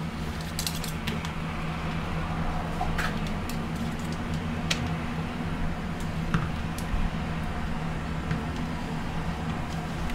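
A steady low mechanical hum with a few light clicks and clinks of kitchen utensils and containers being handled during batter preparation.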